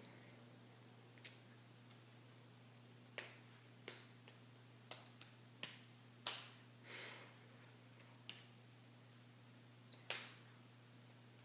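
Sharp slaps and claps of hands striking each other and the body during sign language, about ten scattered irregularly, the loudest about ten seconds in, over a low steady hum.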